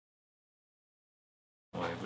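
Dead digital silence at a cut between scenes, with room sound coming in near the end.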